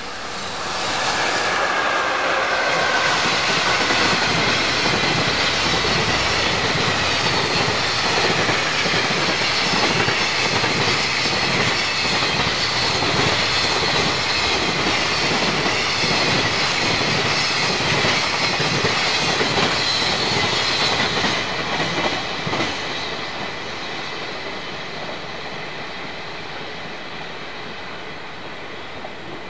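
A freight train hauled by a JR EF66 electric locomotive passing close by: the noise rises sharply about a second in, then a long run of rhythmic wheel clatter over the rail joints as the wagons go past, fading away after about twenty-two seconds.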